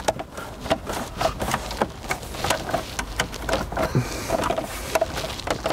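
Plastic dashboard vent trim of a VW T6 Transporter being pressed and clipped into place: an irregular run of sharp plastic clicks and knocks.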